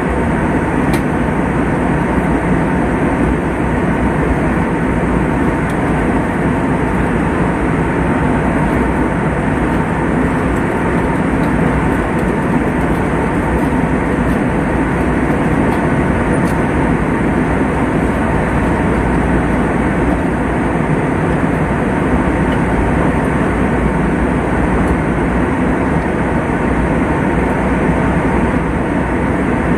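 Steady airliner cabin noise at cruise: the even rush of airflow and jet engines heard from inside the cabin, with no change throughout.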